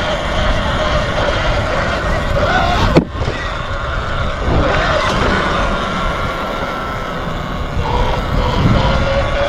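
Heavy wind rumble on the microphone with a wavering motor whine, and one sharp click about three seconds in.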